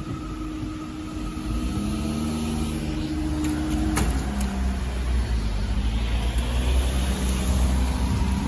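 Level crossing barriers rising, a steady motor hum that stops with a click about four seconds in, over a low rumble of engines.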